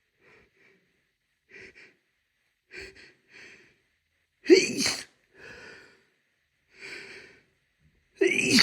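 A person with a head cold sneezing: a few faint, short catching breaths, then one loud sneeze with a falling pitch about halfway through, and a second loud sneeze starting near the end.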